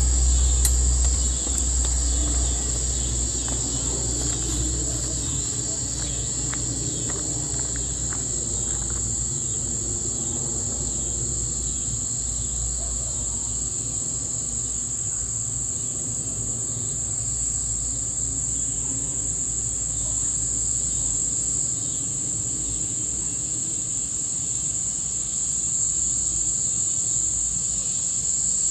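A night insect chorus: a steady high-pitched trill that holds throughout. Under it is a low rumble, loudest in the first couple of seconds, which then fades to a faint hum.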